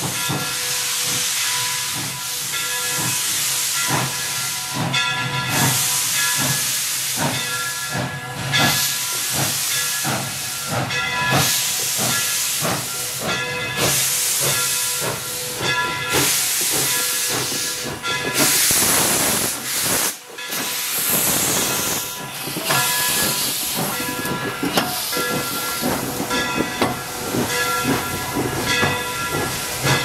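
Steam locomotive CNJ 0-6-0 No. 113 working, with steady exhaust beats over a constant hiss of steam, and sounding its Southern Pacific six-chime whistle, several notes at once, in a series of blasts. A louder rush of steam swells about two-thirds of the way through.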